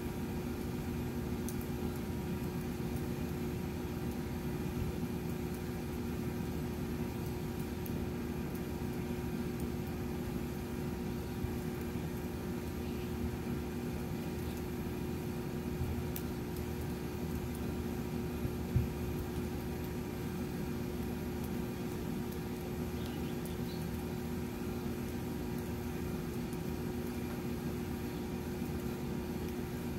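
Steady low rumble and hum with a couple of held low tones, like a machine running, and one faint tick a little past halfway.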